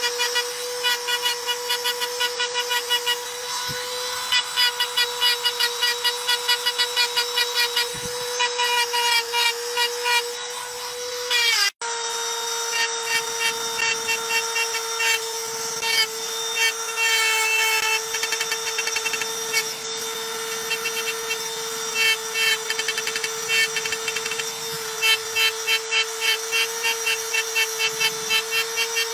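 Handheld power engraving pen running with a steady high whine while its tip cuts lines into polished dark stone, the cutting adding quick rasping pulses several times a second. The sound drops out for an instant just before halfway, then carries on.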